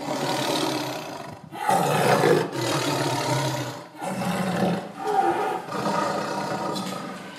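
Male lion roaring: a run of long roars, one after another, each lasting a second or two.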